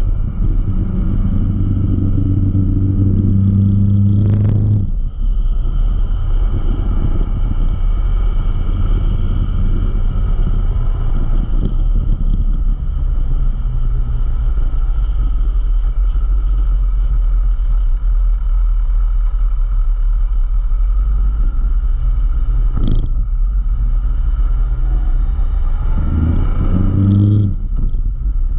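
Motorcycle engine running while the bike is ridden, under a steady low rumble of wind and road noise. The engine note is strong for the first few seconds, falls away about five seconds in as the throttle closes, and rises again briefly near the end.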